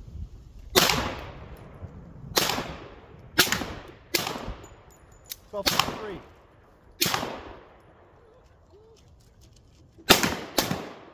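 Glock G40 long-slide pistol firing 10mm rounds through a 6.75-inch KKM barrel: about eight single shots at irregular intervals, the last two in quick succession, each with an echoing tail.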